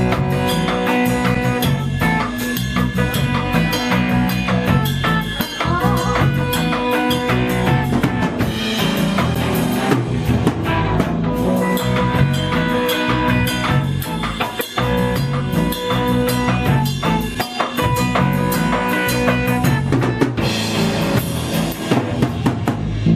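Live band playing an instrumental break between sung verses: a drum kit keeps a steady beat under a bass line and held melodic notes.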